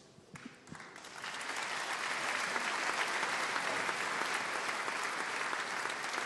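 Theatre audience applauding: a few scattered claps at first, then full applause that builds after about a second and holds steady.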